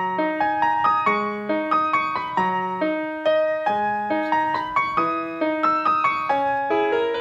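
Piano music: a steady run of notes over low bass notes that recur about every second and a half.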